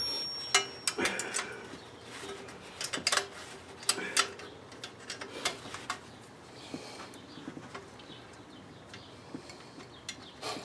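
Scattered light metallic clicks and clinks of hand tools, irregularly spaced and mostly in the first half: a socket being swapped on an extension and fitted to a bolt.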